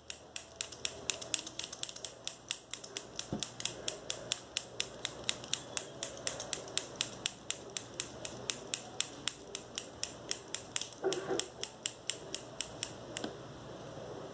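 A pair of scissors snipped open and shut over and over, the blades clicking sharply about four times a second in a steady rhythm.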